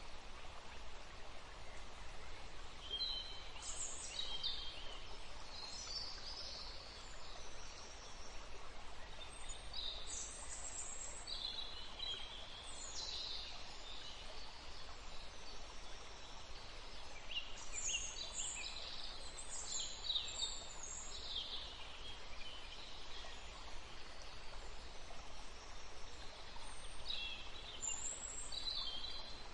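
Flat paintbrush dragging poster colour across thick sketchbook paper and working paint in a plastic palette: short scratchy brush strokes at irregular intervals over a steady hiss.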